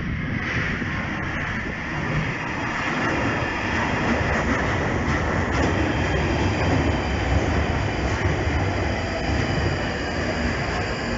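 London Underground Northern line 1995 Stock train running into the platform past the camera: a loud, steady rumble of wheels on rail and traction motors, with a thin high squeal from the wheels setting in over the second half.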